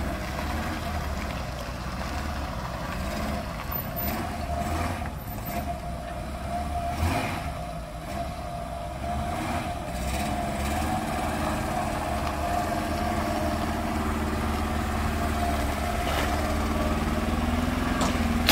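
Old Opel Kadett's four-cylinder engine running as the car is driven slowly forward and up loading ramps, the revs dipping and picking up again about halfway through. A short knock right at the end.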